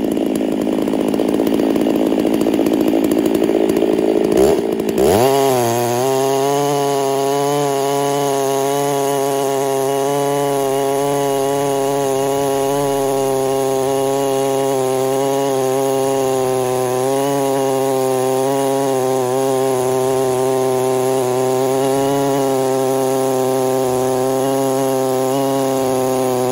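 Stihl 660 two-stroke chainsaw on a chainsaw mill with a 30-inch bar. Its engine note rises about five seconds in, then holds steady at full throttle, wavering slightly as the saw rips lengthwise through a large log.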